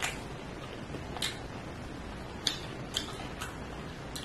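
Mouth eating sounds from chewing fried egg: a handful of short, wet smacks and clicks of the lips and tongue at irregular intervals over a low steady hiss.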